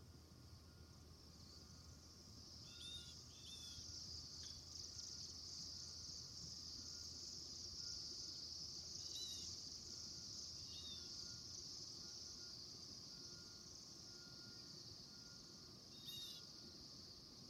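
Faint, steady high-pitched drone of insects, with a few brief bird chirps: a pair about three seconds in, then single chirps around the middle and near the end.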